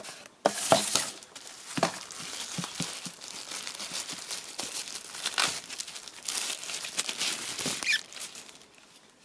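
Clear plastic bag crinkling and rustling while a handheld oscilloscope is worked out of it, with small handling knocks. It dies away near the end.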